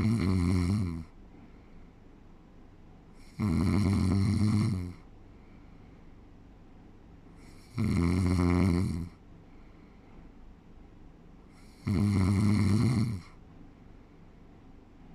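A sleeping person snoring: four long, pitched snores, each a little over a second, about every four seconds, with quiet breathing between them.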